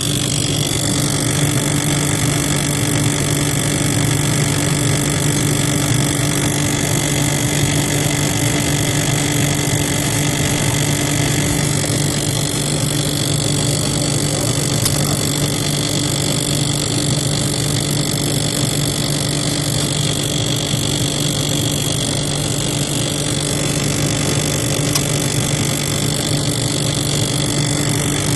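Loud, steady mechanical drone from a GE Profile side-by-side refrigerator's freezer: a low hum with a high whine over it, unchanging throughout. It is the abnormal running noise the owner first tied to the ice maker and later traced to the freezer.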